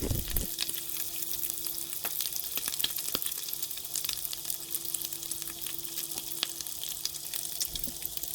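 Halved bacon strips frying in a pan on medium heat: a steady sizzle dotted with frequent sharp pops of spitting fat.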